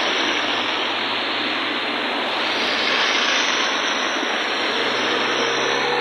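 River in flood at full capacity, its water rushing past in a steady, dense rush of noise.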